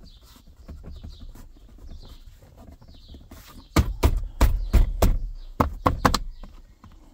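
A hand patting and knocking on the plastic rear of a Maxus T60 pickup's centre console: about eight quick, loud thumps from a little past halfway to near the end, over faint repeated high chirps.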